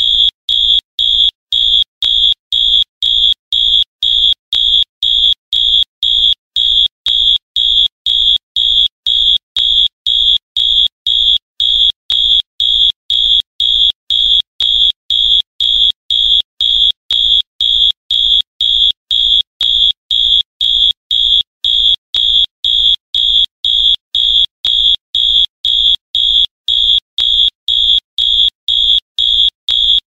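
Wall-mounted fire alarm horn strobe sounding a loud, high-pitched buzzing tone in even pulses, about two a second.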